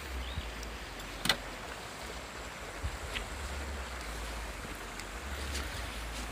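Wind buffeting the microphone: a low rumble that swells and drops. There is one sharp click about a second in.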